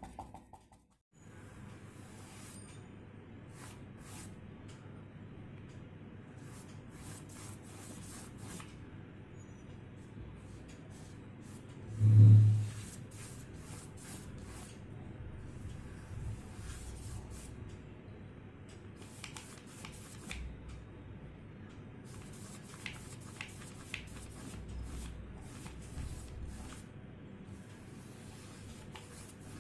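A paintbrush scratching and dabbing on paper in short, repeated strokes, with faint scratchy clicks throughout. A single loud low thump sounds near the middle.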